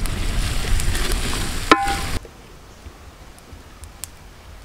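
Sliced onions sautéing in hot oil in a large metal pan, sizzling and scraped by a metal spatula, with a brief squeak near the middle. After about two seconds the sound cuts off abruptly to a much quieter background.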